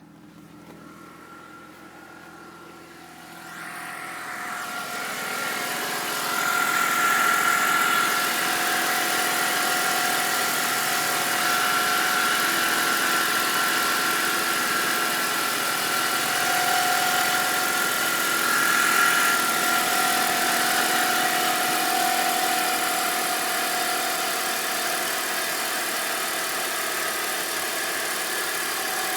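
BMW 325i engine idling with a steady whining whistle over it, growing louder during the first several seconds and then holding. The owner hears this whine only from a cold start, and it goes away once the engine warms up.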